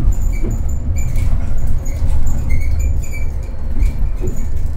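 Inside a Mercedes-Benz eCitaro battery-electric city bus on the move: a steady low rumble of the bus rolling, with frequent short, high-pitched squeaks and chirps throughout.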